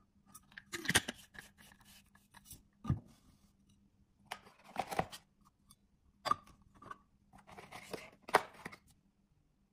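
Small stainless-steel cups from a vacuum flask set being handled: lifted out of the box's insert and stacked, giving scattered light clicks, taps and short scrapes every second or so.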